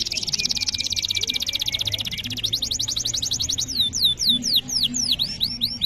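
Domestic canary singing a long, continuous song. It opens with a fast rolling trill of rapidly repeated high notes. About four seconds in come several quick downward-sweeping notes, and a fast trill starts again near the end.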